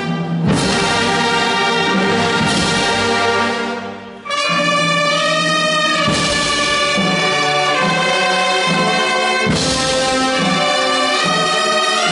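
A wind band of clarinets, saxophones and brass playing held chords. The sound drops briefly about four seconds in, then the next phrase comes in.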